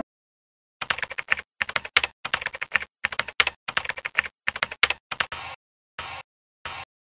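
Computer keyboard typing: quick runs of key clicks for about five seconds, then two separate short keystrokes near the end.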